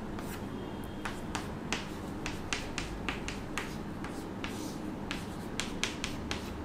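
Chalk tapping and scraping on a chalkboard as equations are written: a string of short sharp clicks, irregular and roughly two or three a second, over a steady low background hum.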